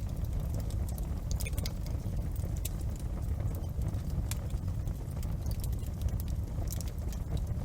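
Wood fire crackling in a fireplace: irregular sharp snaps and pops over a steady low rumble.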